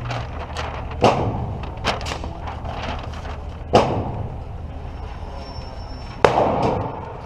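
Gunshots: three loud shots a few seconds apart, each with a short echoing tail, and fainter shots in between.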